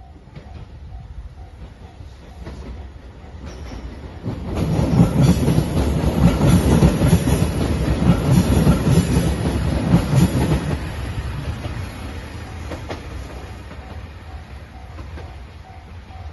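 JR Shikoku 2700 series Anpanman diesel train passing close by. Its rumble and the clickety-clack of its wheels swell about four seconds in, stay loud for about six seconds, then fade as it moves away.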